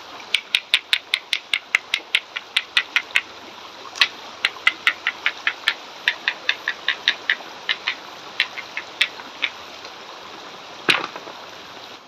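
Creek water running over rocks, with runs of sharp, quick clicks, about five a second, that stop and start again, and a single click near the end.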